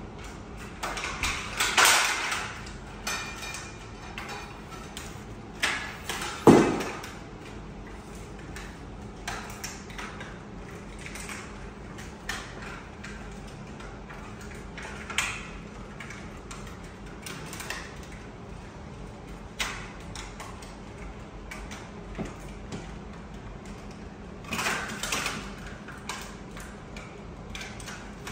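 Scattered household handling noises: light clicks, rustles and clatter coming and going, with a sharper, louder knock about six and a half seconds in.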